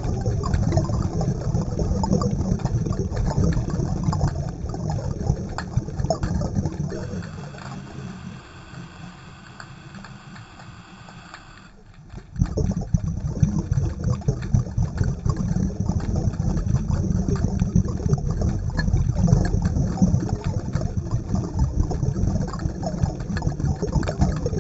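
Underwater ambient noise: a low, rough rumble with crackle. It fades about eight seconds in, leaving faint steady tones, then comes back suddenly about twelve seconds in.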